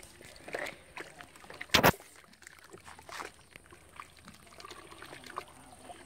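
Gloved hands stirring and kneading a watery cement slurry in a plastic bucket: soft sloshing and squelching, with one sharp knock a little under two seconds in.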